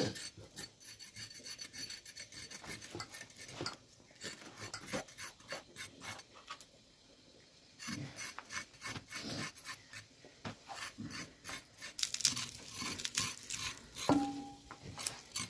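Knife blades scraping the skin off carrots in quick short strokes, several a second, with a pause of about two seconds midway and louder strokes near the end.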